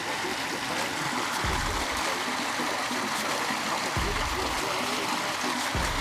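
Steady rushing and trickling of an inflow stream running into a pond, with a few low bumps.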